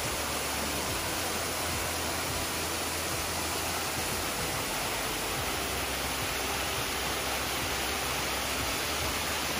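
Waterfall rushing steadily, water pouring down layered rock ledges into a pool.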